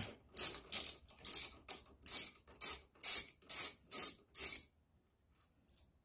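Hand socket ratchet clicking in about ten short strokes, roughly two a second, as a handlebar clamp bolt is backed out; it stops a little over four seconds in.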